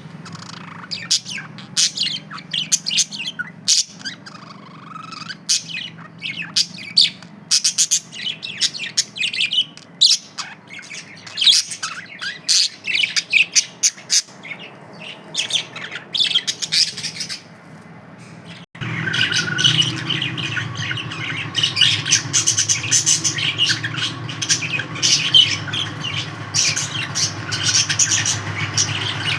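Pet budgerigars chirping and squawking in quick, irregular calls. About two-thirds of the way in the sound changes abruptly to louder, denser budgie chatter over a steady low hum.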